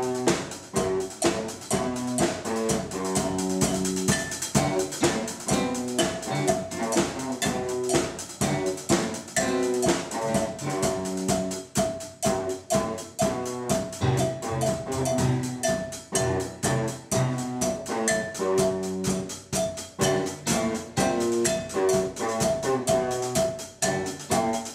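Rock band playing an instrumental passage: electric guitar and keyboard over a steady drum beat, with cowbell struck by a stick.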